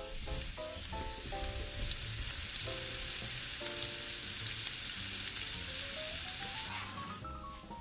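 Sliced red onions sizzling in hot oil in a frying pan, a dense crackling hiss that dies away near the end. Light background music plays over it, with a rising run of notes toward the end.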